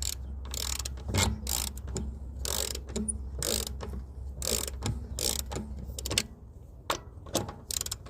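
Half-inch hand ratchet clicking in short bursts as lug nuts are run onto the wheel studs of an Audi A4.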